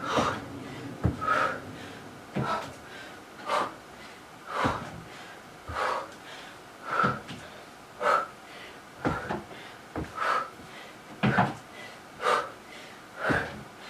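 A woman breathing out hard in short, even puffs about once a second while doing step-ups with a reverse lunge. A few dull thuds of feet landing come with some of the puffs.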